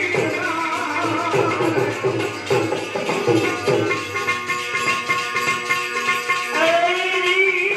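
Indian-style music with a rhythmic hand-drum beat under a bending melody line, which settles into longer held notes near the end.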